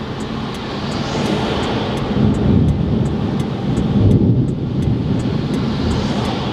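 Thunderstorm rain and wind heard from inside a parked car, a loud steady rush, with a deep rumble swelling about two seconds in and again about four seconds in.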